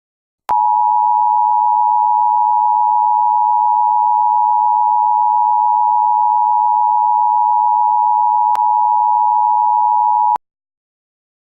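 Emergency alert attention signal: a steady, loud two-tone electronic beep held for about ten seconds. It starts with a click and cuts off suddenly near the end.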